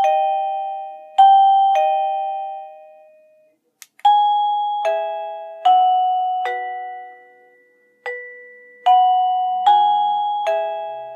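TeckNet WA888 wireless doorbell receiver playing its electronic chime tones. First a two-note high-low ding-dong, then from about four seconds in a different tune of two four-note phrases, each note struck and dying away.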